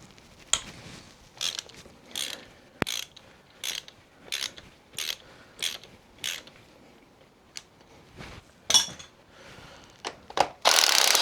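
Hand ratchet wrench clicking in a run of short, evenly paced strokes, about eight in a row, followed by a few single clicks and a louder, longer rasp near the end.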